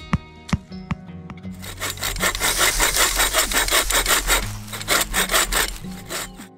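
Two sharp knocks of a hatchet striking wood, then, from about a second and a half in, a bow saw cutting through a dead log in quick back-and-forth rasping strokes that fade near the end.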